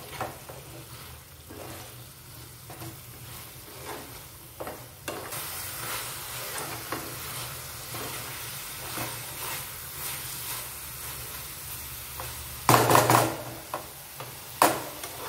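Green banana chunks frying in a thick spiced masala in a nonstick pan, sizzling steadily while a spatula stirs and scrapes through them. Near the end there is a louder clatter and then a sharp knock.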